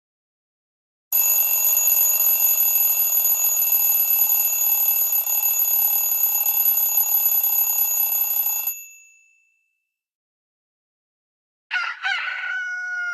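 A built-in tone from a Samsung Galaxy Note GT-N7000 playing: a sustained ringing sound with steady high tones, lasting about seven and a half seconds before it fades out. Near the end a second, shorter tone with gliding pitches starts.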